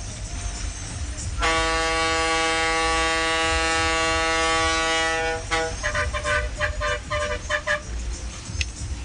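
Bus air horn sounding one long steady blast of about four seconds, then a quick run of short toots, over the low running rumble of the bus.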